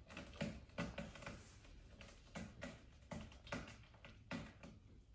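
A string of light, irregular taps and clicks, about a dozen in five seconds.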